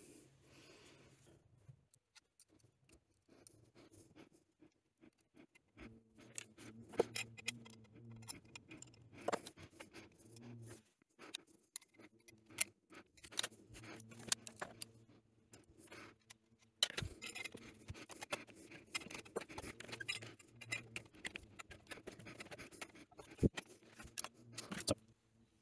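Faint small metallic clicks and taps of pliers and a pick working valve collets into place against a spring compressor on a Yamaha SR125 cylinder head. A low hum comes and goes behind them from about six seconds in.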